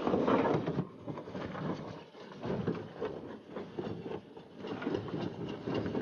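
Concrete and brick rubble clattering and grinding as it drops through a jaw crusher: an uneven, rumbling clatter of many small knocks that swells and dips.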